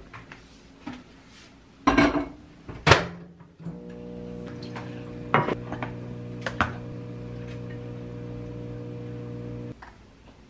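Kitchen handling sounds: a few sharp knocks and clatters as a plastic food container is handled and a rice cooker is opened, then light taps as rice is scooped into a dish. A steady hum comes in after about three and a half seconds and cuts off suddenly near the end.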